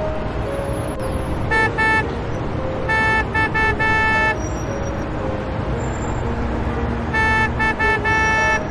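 Car horn honking over and over: two quick toots, then twice a run of three short toots ending in a longer blast. A steady traffic rumble runs underneath.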